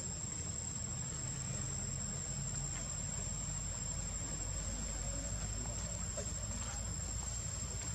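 Insects calling in a continuous, steady high-pitched drone, with a low steady rumble underneath.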